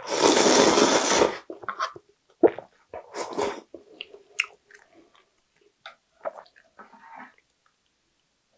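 Loud slurp of rice and broth from a bowl held to the lips, lasting a little over a second, then wet chewing and swallowing with small mouth clicks, close to the microphone.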